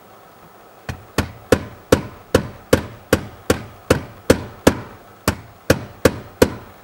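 A 16-ounce rubber mallet tapping repeatedly, about two or three blows a second, to drive a shifter cable bushing onto its stud under the car. Each blow is a sharp knock with a brief ring. The tapping starts about a second in.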